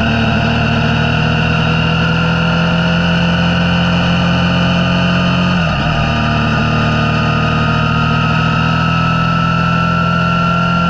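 Motorcycle engine running under way, its note rising slowly as it pulls, with a brief dip in the engine sound about halfway through.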